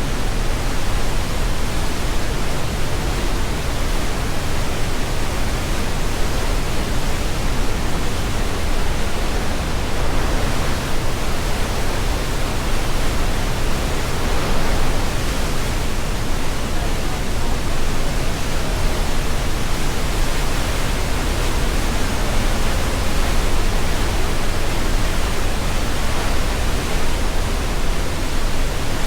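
Glacial meltwater of the Gornera river rushing through the narrow rock gorge: a loud, steady roar of white water that does not let up.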